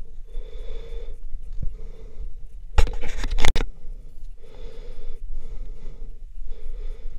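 A hiker's heavy breathing close to the microphone, one breath about every second, with a loud scrape and clatter about three seconds in as hand or camera brushes the rock.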